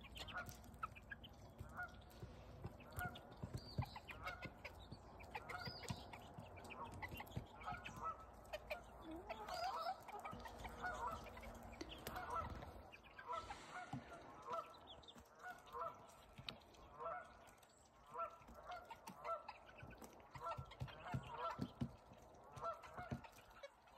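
Flock of geese honking faintly over and over, many calls overlapping, a sound of geese gathering up before heading south.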